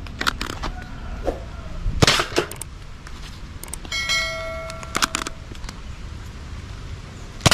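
Sharp plastic clicks from a Nerf Mega Bigshock blaster being handled and worked, with a louder cluster of clacks about two seconds in. About four seconds in, a bell-like chime rings for about a second along with clicks, the sound effect of an on-screen subscribe pop-up.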